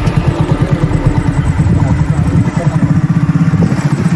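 Motorcycle engine running close by, a rapid, even low beat.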